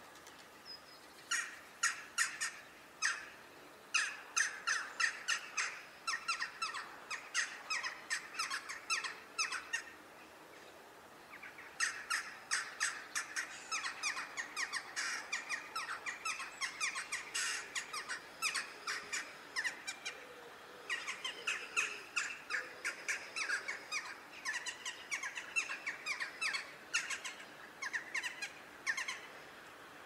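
Western jackdaws calling: many short, sharp calls in quick series, pausing briefly at the start and again around ten seconds in.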